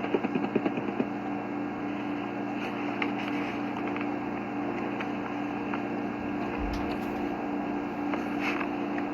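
Steady low mechanical hum with a pitched drone, with a quick run of clicks and taps in the first second.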